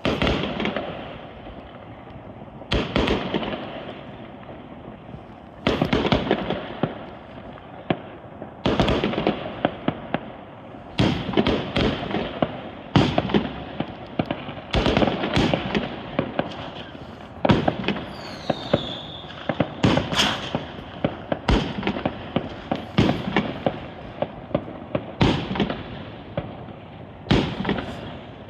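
Aerial fireworks going off one after another, a loud burst every two to three seconds, each trailed by crackling. A brief falling whistle comes about two-thirds of the way through.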